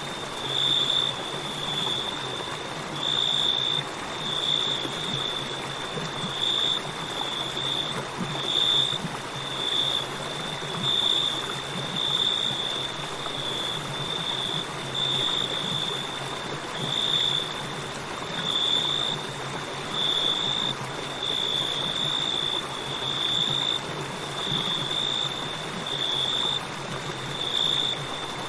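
River water flowing steadily under crickets trilling at one high pitch, the trill swelling louder every second or two.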